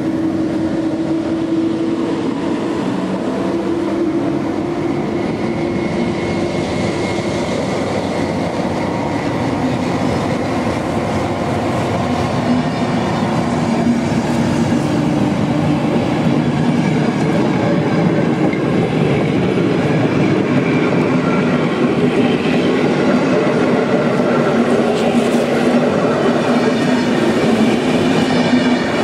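A passenger train passing close by: an EP07 electric locomotive, then a long line of coaches, with a steady loud rumble of wheels on rails. A humming tone is heard in the first few seconds while the locomotive goes by.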